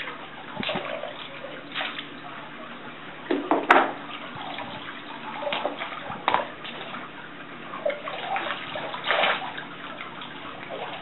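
Swim fins splashing in a pool as feet kick at the water surface, in irregular splashes, the loudest a little under four seconds in. Near the end water runs off a fin lifted out of the pool.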